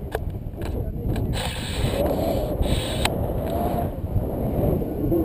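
Wind from the airflow of a paraglider in flight buffeting a handheld action camera's microphone: a steady low rumble, with a few sharp clicks in the first second and a half.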